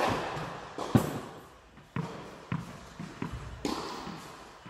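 Tennis ball strikes and bounces echoing in a large indoor tennis hall: a sharp impact about a second in, then several lighter bounces and taps.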